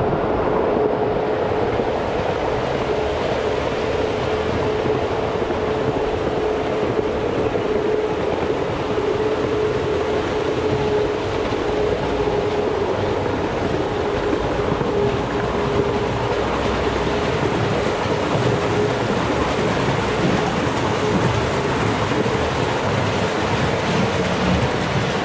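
Ride-on miniature train running along its narrow-gauge track with passengers aboard: a steady running noise with a steady whining tone that fades out about three quarters of the way through.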